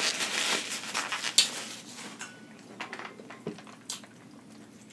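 Paper towel rustling as hands are wiped for about two seconds, then a few light scattered clicks and taps of handling.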